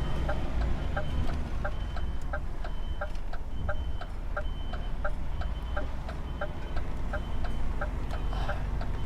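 Truck's diesel engine running low and steady, with a rapid regular clicking of about four ticks a second and a short high beep repeating about twice a second, as from the truck's reversing alarm while it manoeuvres.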